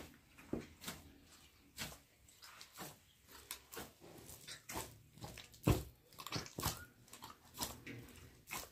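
Hands kneading a large mass of wet bread dough in a metal basin: uneven squelching presses and slaps, about two a second, the loudest about two-thirds of the way through.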